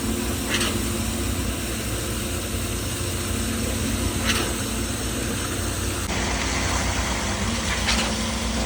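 An engine of construction machinery running steadily at a low, even speed, with three short high scrapes or hisses spaced a few seconds apart.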